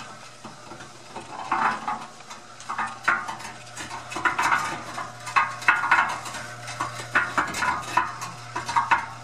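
Montgomery Ward cement mixer running empty, turned by a new half-horsepower Marathon electric motor, on its first test after the motor swap. A steady motor hum runs under irregular metallic clanking and rattling from the spinning steel drum and its drive.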